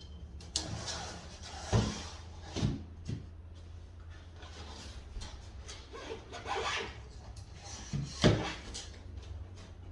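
Vinyl or laminate flooring planks being handled and shifted on the floor: scattered knocks and rubbing, the loudest knocks about two seconds and eight seconds in, over a steady low hum.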